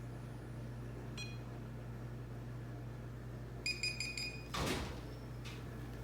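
A run of short, high electronic beeps a little before four seconds in, followed by a brief whoosh, over a steady low hum; a single short chirp sounds about a second in.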